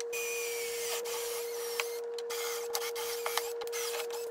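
Cordless drill running steadily at one even pitch as it bores through a steel pan and the MDF beneath, with a hiss of cutting and scattered sharp ticks from the bit and chips.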